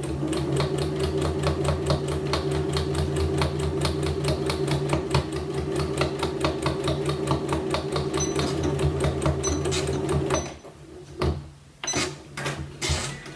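Janome Memory Craft 9900 computerized sewing machine stitching a straight seam at a fast, even rate, its motor hum under a rapid run of needle ticks. The stitching stops about ten seconds in, followed by a few clicks and knocks.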